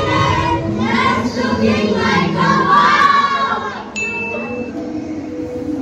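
A crowd of voices, many people talking and calling out at once. The voices thin out about four seconds in, where a click and a short high beep are heard.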